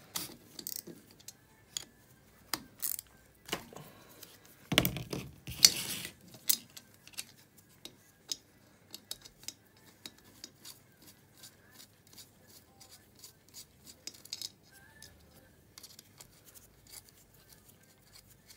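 Metal clinks, taps and clicks of hand tools and small parts against an aluminium ATV engine cylinder head as its tab-locked bolts are worked loose. Louder knocks come about five to six seconds in, followed by a run of quick faint ticks.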